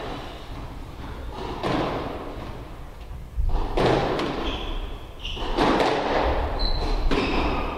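Squash rally: the ball is struck by rackets and smacks off the court walls every second or two, each hit echoing in the enclosed court. Short high squeaks of court shoes on the wooden floor come in the second half.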